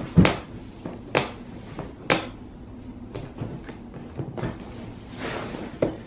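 Cardboard laptop box being opened by hand: three sharp cracks of tape and cardboard about a second apart, then a short scraping slide of cardboard near the end as the inner box comes out, ending in a click.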